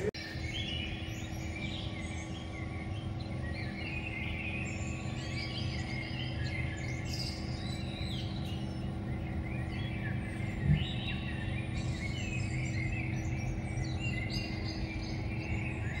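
Many birds chirping and twittering in a dawn chorus over a steady low hum, with one brief thump about two-thirds of the way through.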